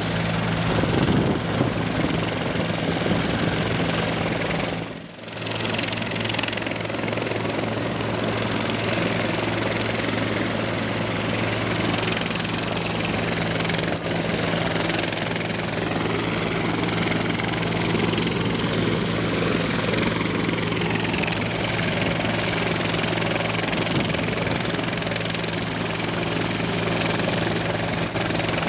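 Bell 412 twin-turbine helicopter running on the ground with its rotor turning: a steady turbine whine over the rotor's low hum. The sound briefly dips about five seconds in.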